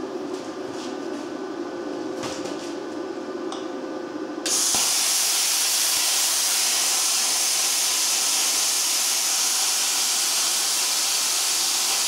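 Steady low hum with a few clicks, then about four and a half seconds in the air plasma cutter (Luch Profi CUT-50) fires up abruptly. Its arc and compressed-air jet make a loud, even hiss as it cuts through steel.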